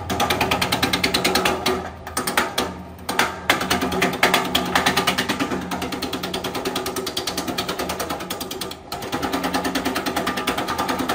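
Electric herb-slicing machine chopping fresh tree branches fed into its chute. The blades cut in a rapid, even stream of clacks over the motor's steady hum, and the sound dips briefly twice as the feed pauses.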